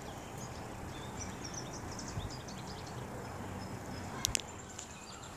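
Small birds chirping over a steady low outdoor background hum, with two sharp clicks about four seconds in.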